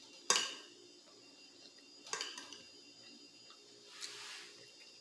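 A metal fork clinks against a glass plate, sharply about a third of a second in and again more softly at about two seconds. Around four seconds comes a softer eating sound as a piece of chicken gizzard is bitten.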